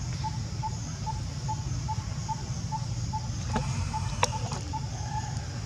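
Forest ambience: a small creature's short chirping call repeating evenly, about two or three times a second, over a steady low hum, with a sharp click a little past four seconds in.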